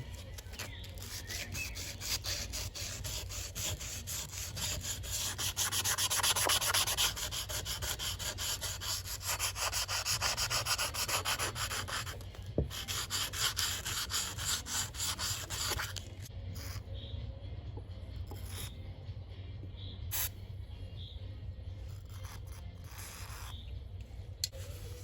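Rapid back-and-forth rubbing strokes, dense for about the first twelve seconds, then sparser and separate.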